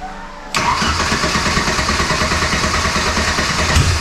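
Starter cranking a fuel-injected Ford 2.3 L four-cylinder engine, starting suddenly about half a second in with a rapid even pulsing; the engine sputters, firing weakly on starting fluid, a sign it now has spark but no fuel pressure of its own.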